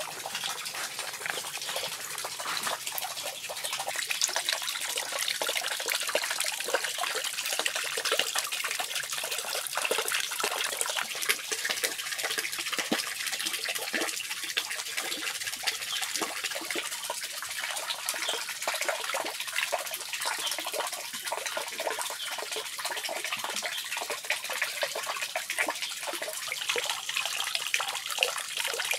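Water trickling and splashing steadily into a small fish pond.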